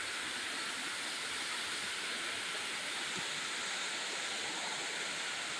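Steady background hiss at an even level, with no distinct knocks or clicks.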